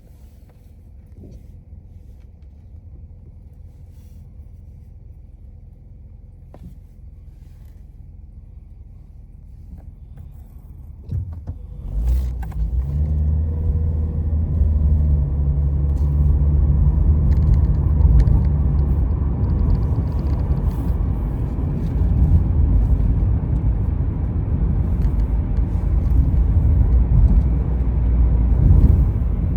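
An engine starts up about twelve seconds in and keeps running with a steady low rumble; before that only a faint low rumble is heard.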